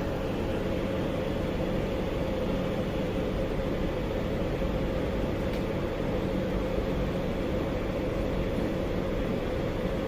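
Steady mechanical hum and hiss of a running machine, unchanging throughout, with one faint click about halfway through.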